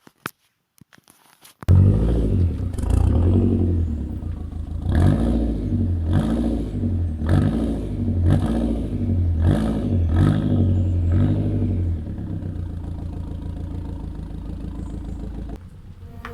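Volvo 480 Turbo's 1.7-litre turbocharged four-cylinder engine revved in a string of short throttle blips, each rising and falling, then settling to a steady idle near the end. The engine comes in suddenly after a second or two of near silence.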